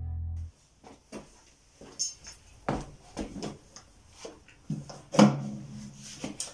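The last half second of background music cuts off, then scattered light clicks and knocks of tools being handled and picked up, with a brief low hum from about five seconds in.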